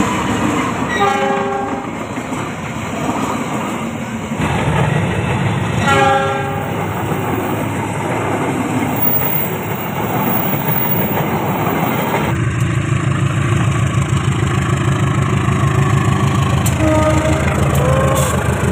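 Diesel-hauled passenger trains at a station: two short horn blasts about a second and six seconds in, over the steady rumble of the train moving past. From about twelve seconds a heavier, regular low rumble of locomotive and coaches rolling by.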